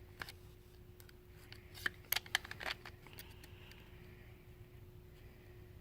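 A trading-card hobby box's packaging being handled and opened: a scatter of sharp crackles and clicks, bunched about two seconds in, over a faint steady hum.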